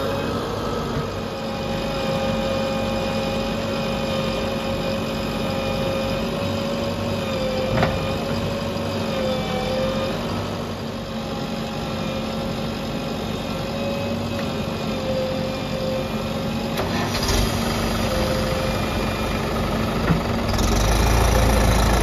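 Diesel engines of a JCB 3DX backhoe loader and tractors running steadily, with a slightly wavering whine over the engine note. Near the end a louder, deeper engine rumble comes in.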